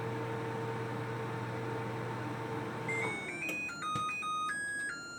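LG countertop microwave running with a steady hum that cuts off about three seconds in. It then plays a short electronic tune of stepped beeps, its end-of-cycle signal that the popcorn setting has finished.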